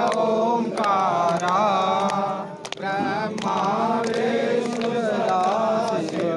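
Hindu puja mantras chanted in a steady sing-song recitation during a bhoomi pujan ground-blessing rite, with a short pause for breath about halfway through.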